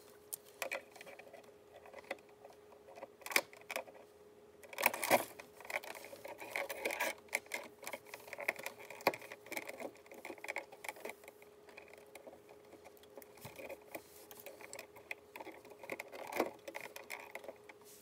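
Wire strippers clicking and snapping as the insulation is stripped off electrical cable wires, with the rustle and flick of the stiff copper wire being handled; irregular clicks throughout, the sharpest snap about five seconds in.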